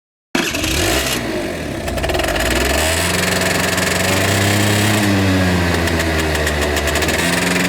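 Motorcycle engine revving up over the first couple of seconds, then running at a steady, higher speed. It starts and cuts off abruptly.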